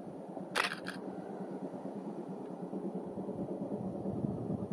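Two camera shutter clicks in quick succession about half a second in, over a steady low rumble.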